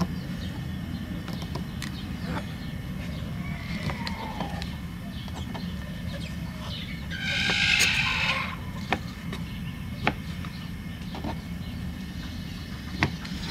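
Kitchen knife cutting through a stack of corn tortillas on a plastic cutting board, with a few soft clicks of the blade on the board, over a steady low rumble. About seven seconds in, a drawn-out call lasting about a second and a half rises above it.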